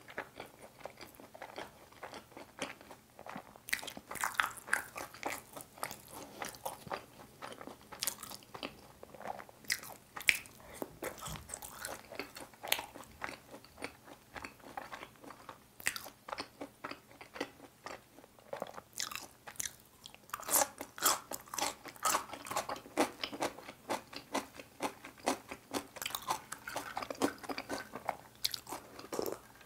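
A person chewing and biting a mouthful of food close to the microphone: bursts of crunching and many short mouth clicks.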